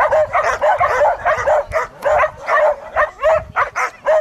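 A dog barking rapidly and repeatedly, short high yapping barks about three a second.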